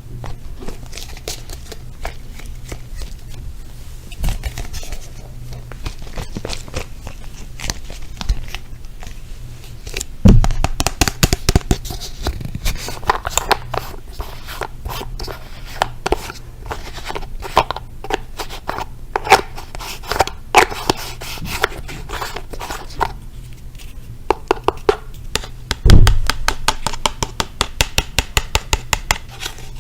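Close-miked ASMR tapping and scratching on objects by hand: many quick, irregular taps and scrapes that grow denser and sharper after about ten seconds, with a heavier knock then and another near the end.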